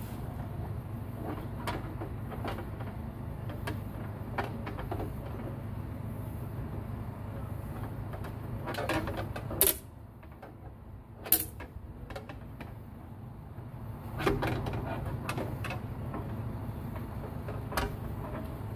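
Scattered clicks and scrapes of a long-reach lockout tool being worked through the top of a truck's cab door, over a steady low hum, with two sharp knocks about halfway through.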